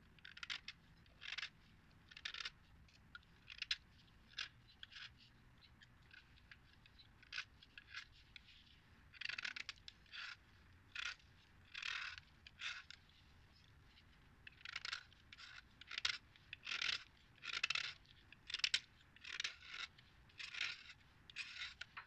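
A utility-knife blade scraping the surface off a chunk of Khrapovsky chalk, cleaning it. The scraping comes in short, irregular strokes with brief pauses, and the strokes come closer together in the second half.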